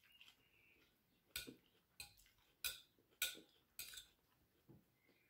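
Metal fork clinking and scraping against a plate while picking up salad: about six light clinks, roughly one every half second.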